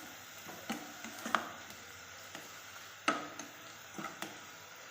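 A spoon stirring onions frying in a pan, clinking and scraping against the pan about half a dozen times, in two clusters.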